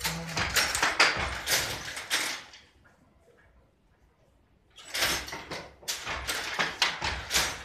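Scraping and knocking noises with many sharp clicks, in two spells about two seconds apart with near silence between them.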